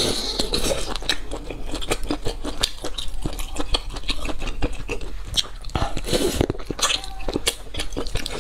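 Close-miked eating: wet chewing and lip smacking with many short crackly clicks as braised meat is bitten and pulled apart by hand.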